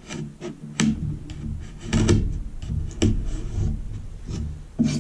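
Utility knife cutting through natural wood edge banding held against a scrap board: a few short, sharp cutting strokes and scrapes, about one a second.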